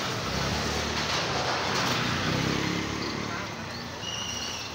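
Busy street-market ambience: a steady wash of motorbike traffic with scattered voices. A brief high-pitched tone sounds near the end.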